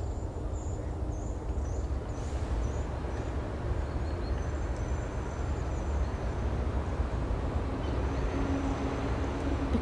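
Steady outdoor background noise, mostly a low rumble, with a few faint, high-pitched small-bird calls in the first few seconds and again towards the end.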